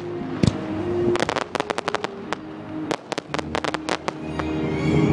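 Fireworks going off in rapid volleys of sharp bangs and crackles, with music playing underneath that swells near the end.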